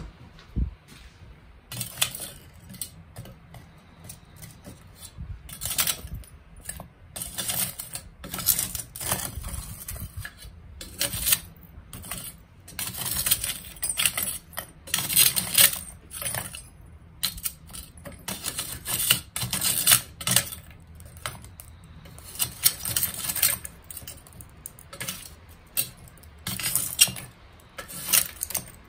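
Pieces of binchotan charcoal clinking against each other as they are handled: an irregular run of bright, ringing clinks, typical of this very hard, dense charcoal.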